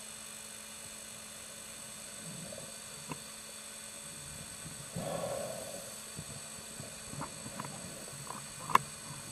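Scuba diver breathing through a regulator underwater: a steady hiss, with a burst of exhaled bubbles about five seconds in. A few small clicks, and one sharp click near the end.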